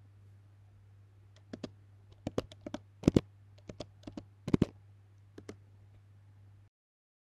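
Typing on a computer keyboard: an irregular run of about fifteen sharp key clicks, the loudest in the middle, over a faint low hum. The audio cuts off abruptly near the end.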